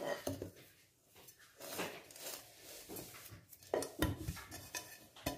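A heavy-bottomed pot being tilted and turned by hand to coat its oiled inside with flour: flour rustling and scraping over the metal, the pot shifting on a wooden board, with a few sharper knocks about four seconds in and near the end.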